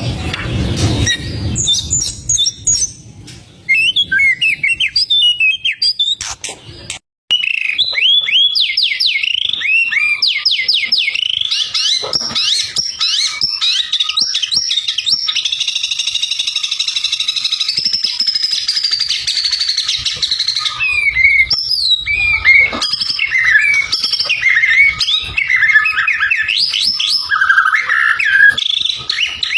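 White-rumped shama (murai batu) in full song: fast, unbroken runs of rising whistled notes and warbles, with a short break about seven seconds in.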